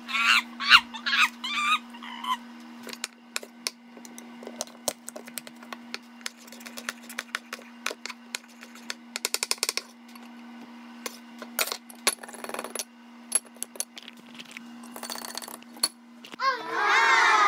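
A kitchen knife chopping garlic on a wooden cutting board: irregular knocks of the blade on the board, with a quick run of rapid chops about nine seconds in. A loud, falling vocal sound comes near the end.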